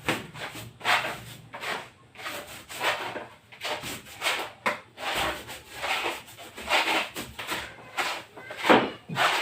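Brush strokes on a plywood wall, rhythmic swishing about twice a second, as plastic varnish is brushed on.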